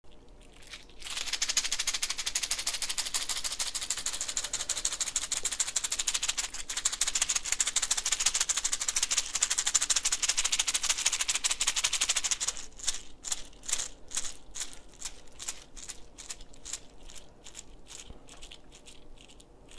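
Hand rattles shaken fast and without a break, then in separate shakes about three a second that grow fainter over the last several seconds.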